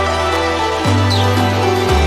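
Background music: sustained synth chords over a deep bass line that changes note about once a second.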